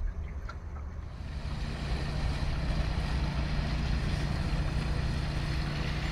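A boat engine running steadily with a low hum, under wind noise on the microphone that grows louder from about a second in.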